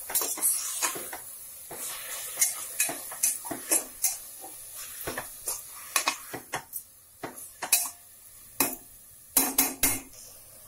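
A ladle scraping and knocking against the inside of a pressure cooker as grated beetroot and a ground tomato, ginger and garlic paste are stirred together, with irregular strokes and a few louder knocks near the end. A faint sizzle of the masala frying in oil runs underneath.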